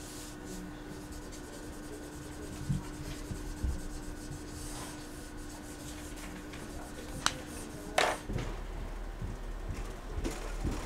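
Felt-tip marker rubbing and scratching across paper in quick sketching strokes, over a faint steady hum. Two sharp clicks come about seven and eight seconds in, the second the loudest. Then the hum gives way to a different low room tone with a few light clicks.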